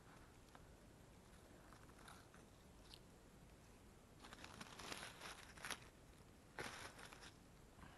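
Faint crunching and rustling of dry leaf litter as a hand reaches in and picks a porcino mushroom from the forest floor, in a cluster of crackles past the middle and a shorter one about a second later.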